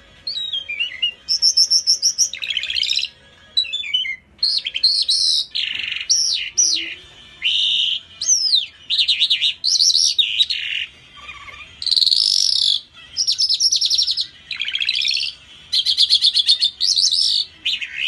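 A caged songbird singing a long, varied song: quick trills, rapid runs of repeated notes and sweeping whistles, in phrases of about a second with short pauses between.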